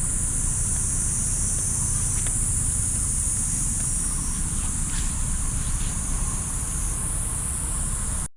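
Steady high-pitched insect chorus, with a low rumble underneath. It stops abruptly at a cut near the end.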